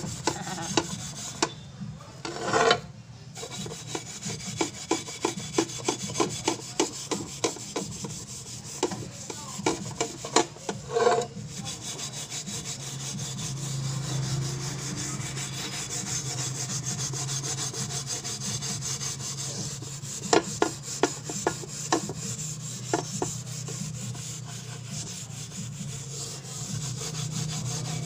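A scrubber rubbing back and forth over the inside of a metal frying pan coated in cleaning foam: a steady scratchy rubbing with runs of quick, sharp strokes. The grime is scrubbing off after the pan soaked in the cleaner.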